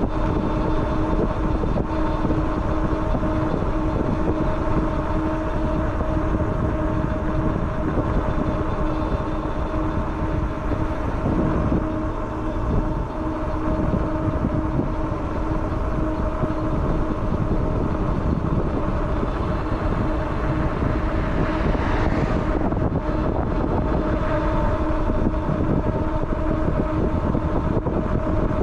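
Riding noise on a Rad Power Bikes RadRunner electric bike: a steady rush of wind and rolling tyres with a constant whine running through it. About three-quarters of the way through, the hiss briefly rises.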